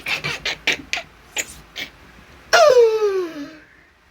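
A woman panting in quick short breaths, then a loud, long moan that falls in pitch and fades, sexual sounds from the skit.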